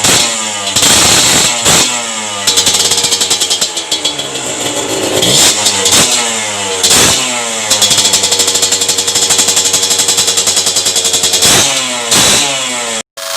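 Kawasaki KMX125's single-cylinder two-stroke engine, fitted with an aftermarket expansion-chamber pipe, being revved over and over: the pitch climbs and falls back with each blip of the throttle, with a longer held rev in the middle. It cuts off suddenly near the end.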